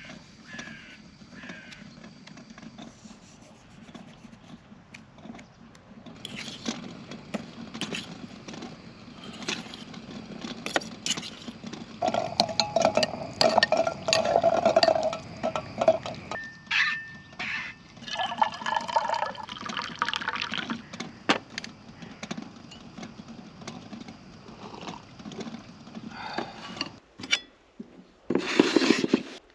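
Liquid poured from a metal camping kettle into a cup for a few seconds around the middle, among clinks and clatter of tableware and utensils on a folding table. One clink rings briefly, and there is a short louder noise near the end.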